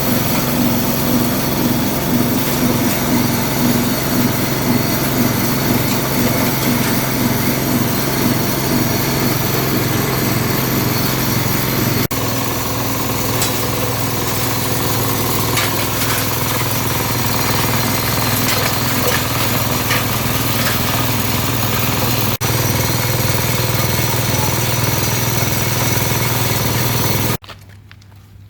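Engine-driven manure compost grinding machine running steadily, a loud motor sound with a low pulsing beat and a rattling grind over it. It cuts off abruptly near the end.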